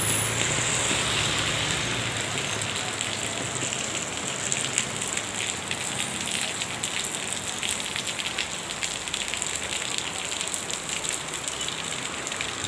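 Steady rain falling onto hard surfaces, a constant hiss dotted with many small drop ticks.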